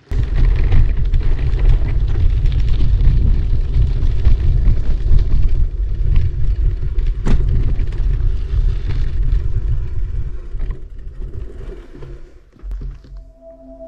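Mountain bike riding fast over a rough dirt track: heavy wind buffeting on the action camera's microphone mixed with tyre and frame rattle, with one sharp knock about seven seconds in. The noise dies down near the end as the bike slows.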